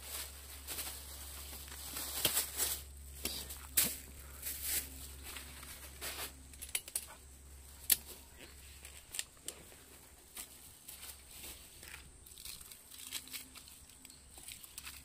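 Irregular rustling and crinkling with sharp clicks and knocks as things are handled, busiest in the first half and sparser toward the end.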